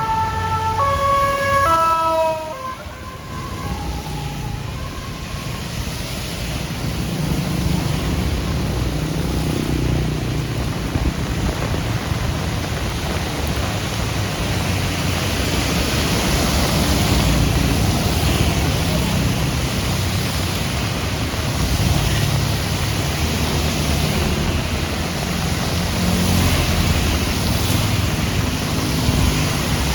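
Steady rain falling with the low rumble of road traffic. At the start, a short run of stepped electronic tones jumping between a few pitches cuts off after about two seconds.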